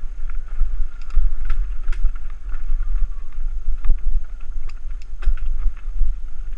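Wind buffeting the microphone of an action camera on a bicycle rolling down a dirt and gravel road, with a steady low rumble. Scattered clicks and rattles come from the tyres and bike jolting over loose stones; one sharper knock falls about four seconds in.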